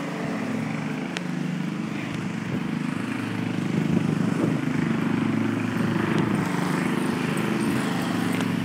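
A motor running steadily: a low, even hum.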